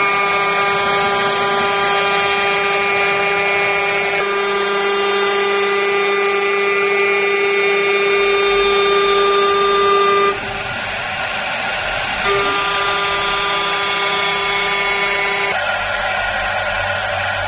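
CNC wood-turning lathe running: a steady motor whine over a noisy hiss. The whine drops out for about two seconds partway through, comes back, then stops near the end while the hiss goes on.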